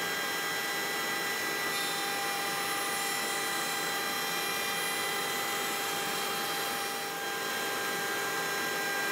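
Router mounted in a router table running steadily with a high whine, its bearing-guided roundover bit rounding over the edge of a board fed past it by hand.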